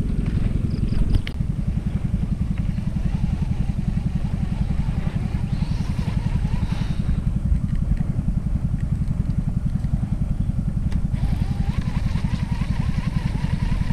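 Small engine running steadily at a constant speed, with a fast, even low chugging.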